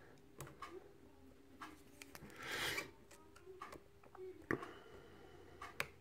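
Faint clicks and scraping of a lock pick working the pins of a small brass Squire lock core under a tension wrench, with a short scratchy rasp about halfway through.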